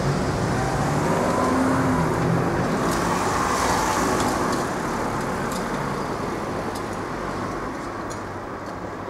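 Cars pulling away and driving over a railway level crossing as the barriers rise: steady engine and tyre noise, loudest in the first few seconds, then fading away after about four and a half seconds.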